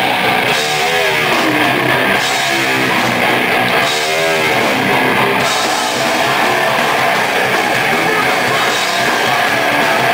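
Live powerviolence band playing loud and fast: distorted electric guitar and pounding drums, with a singer yelling into the microphone, wavering shouts clearest in the first five seconds or so.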